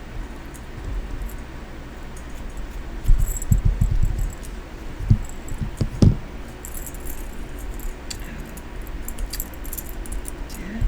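Small metal pieces jangling and clicking while being handled, with several dull knocks on a hard surface near the middle.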